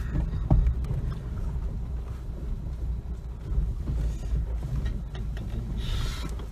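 Dacia Duster creeping over a stony forest track, heard from inside the cabin: a steady low engine and road rumble, with a sharp knock about half a second in and smaller knocks as the wheels and underbody go over stones, and a brief hiss near the end.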